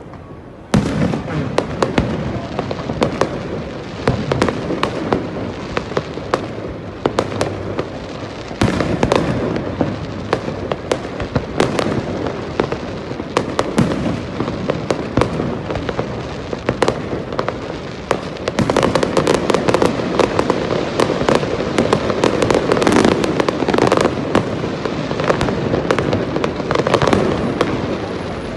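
Fireworks display: shells bursting and crackling in a dense, irregular run of bangs and pops. The bangs start abruptly about a second in and grow denser in the second half.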